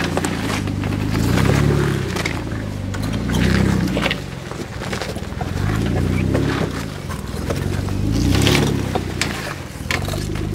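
Jeep Wrangler engine working in low gear up a rocky climb, its note rising and falling in surges with the throttle, while tyres crunch and scrape over loose rock.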